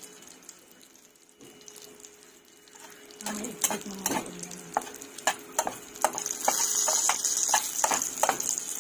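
Oil sizzling in a frying pan under an eggplant omelette with egg and corned beef, faint at first and louder from about three seconds in, with a run of sharp clicks and a spatula scraping the pan.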